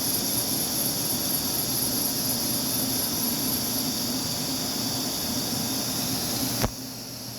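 Steady running noise of CNC shop machinery: a low hum under a high hiss and whine. A sharp click comes near the end, after which the high hiss drops away and the sound goes quieter.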